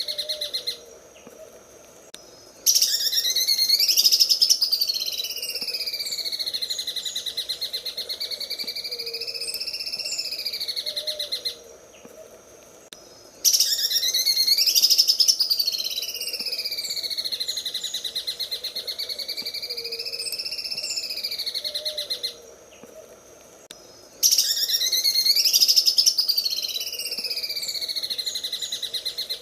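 Cucak ijo (green leafbird) singing its 'sewing machine' song: a fast, machine-like ticking trill over a whistle that rises and falls. The same song bout repeats about every eleven seconds, each one starting loudest after a short pause.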